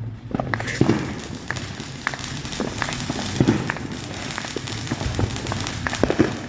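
Fireworks crackling and popping: a continuous haze of noise dotted with many sharp, irregular cracks.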